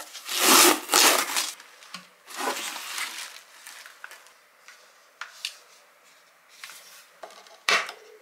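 Packing tape ripped off a cardboard box, a loud tearing noise of about a second, followed by a shorter, weaker tear. Then cardboard and packing rustling with small clicks as a package is lifted out, and a sharp knock near the end.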